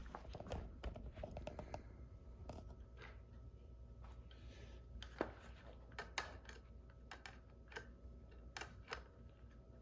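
Plastic toy train track pieces and risers being handled and fitted together: scattered light clicks and taps, a quick run of them in the first two seconds and the sharpest clacks about five and six seconds in.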